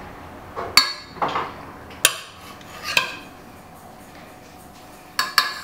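Metal spoon clinking against a stainless steel pot and a plate while sauce is spooned out: four or five sharp, ringing clinks spaced irregularly, with softer scrapes between.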